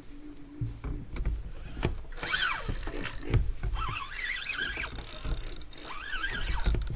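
Low knocks and bumps in a small boat, with a steady high insect drone from the marsh and a few wavering squeaky tones.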